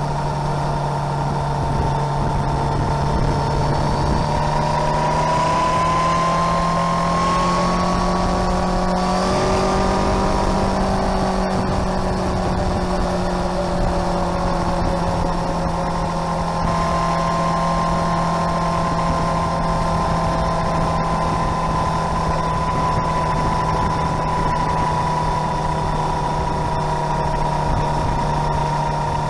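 Motorcycle engine running under way at a steady cruise, its note rising gently twice and easing back, with a steady rush of wind and road noise.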